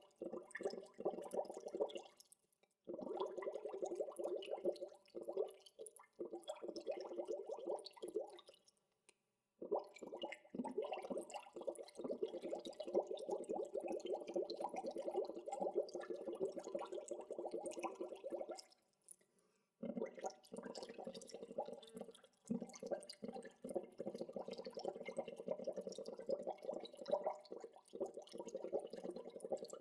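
Water bubbling: a dense, rapid stream of small bubble pops, breaking off into brief silence three times.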